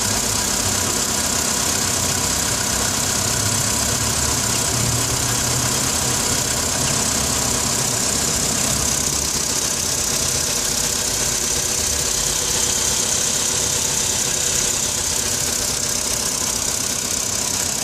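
Volkswagen Polo Sedan engine idling steadily with a knock, the fault being recorded.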